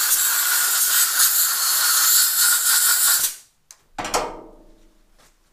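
A blast of compressed air from a blow gun hissing steadily for about three seconds and stopping abruptly, blowing swarf out of a freshly cut thread on a metal lathe; a short metallic clatter follows about four seconds in.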